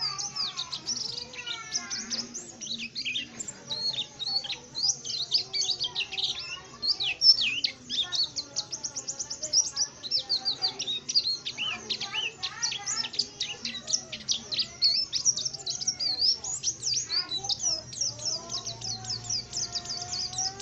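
Pet white-eye (pleci) in full song: a rapid, unbroken stream of high, thin chirps and twitters.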